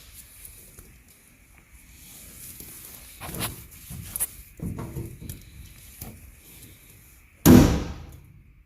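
Scattered clinks and knocks of hand tools being handled, with one loud bang about seven and a half seconds in.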